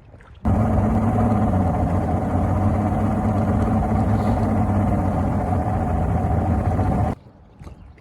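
Boat motor running at a steady speed with a steady hum. It switches on abruptly about half a second in and cuts off abruptly about a second before the end.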